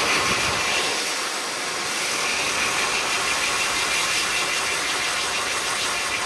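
Lovair Air Fury C1 hand dryer, a modified Hokwang/Fastdry JA05, running steadily with a constant rush of air, its airflow striking the hands held under the outlet.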